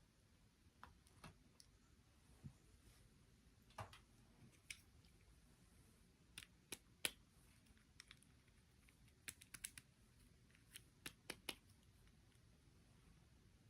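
Faint, irregular small clicks and taps, a couple of dozen scattered through, with the sharpest one about halfway.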